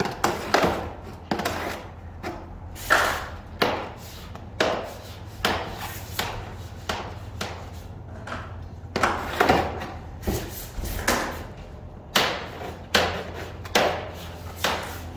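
Irregular knocks, about one or two a second, as the edge of a Filon fiberglass roof sheet is pushed and tapped into the RV's roof-edge track with a wooden stick and by hand.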